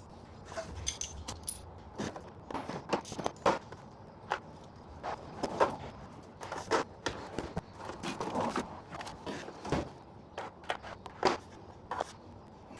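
Steel sockets, extensions and ratchets clinking and clattering as they are picked up by hand and gathered together, in a run of irregular sharp clinks.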